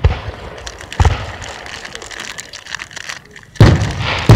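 Fireworks going off: a bang right at the start, another about a second in, scattered crackles, then two more bangs close together near the end, each booming and trailing off.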